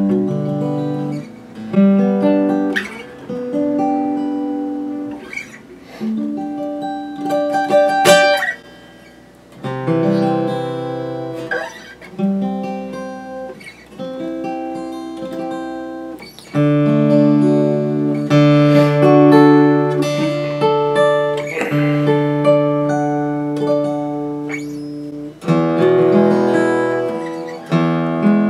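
Martin D-41 dreadnought steel-string acoustic guitar being played, its neck freshly reset, refretted and its bridge re-glued. It plays phrases of ringing chords and single notes with brief pauses, then fuller, longer-held chords from about halfway through.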